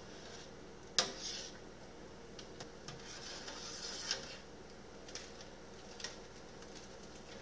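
A long spoon stirring in a stainless-steel stockpot of wort, with faint scraping and a few light knocks against the pot. There is one sharp clink about a second in, and a soft rustle a little later.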